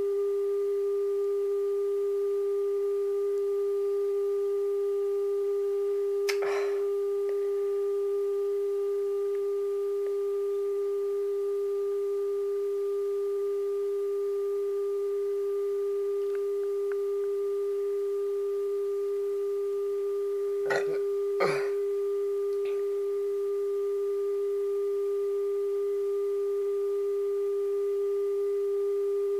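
A steady, pure mid-pitched electronic tone with faint overtones, played through a CRT television's speaker from a VHS tape over a blank blue picture. Brief knocks break in once about a quarter of the way through and twice about two-thirds through.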